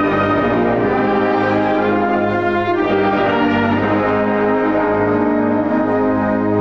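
Concert band playing held chords, with low brass (tubas and euphoniums) prominent and flutes above; the harmony changes about three seconds in.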